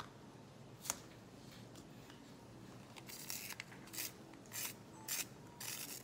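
Two clicks of coloured pencils knocking together, then about five short rasping turns of a coloured pencil in a small handheld pencil sharpener.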